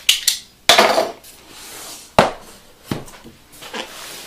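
Cardboard box being handled and tipped over onto a wooden table: a couple of quick clicks at the start, a scraping rustle just before a second in, a sharp knock a little after two seconds, then a few lighter knocks.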